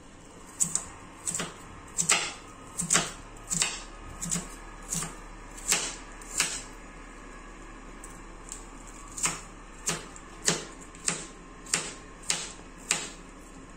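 Chef's knife finely chopping onion on a cutting board: a steady series of crisp knife strikes, about three every two seconds, with a pause of about two seconds midway.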